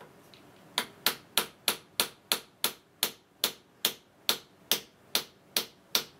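Ball-peen hammer striking the end of a steel shaft in an Atlas lathe apron gear, about three even blows a second after a pause of under a second, driving the shaft out of the gear.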